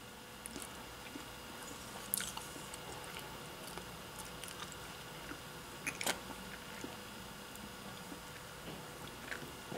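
Faint mouth sounds of a person eating a spoonful of ice cream: quiet smacks and small wet clicks while chewing and tasting, with sharper clicks about two seconds in and again around six seconds.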